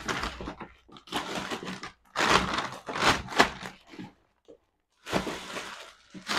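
Plastic shopping bags and packets rustling and crinkling in irregular bursts as purchases are unpacked and sorted by hand, with a short pause about four seconds in.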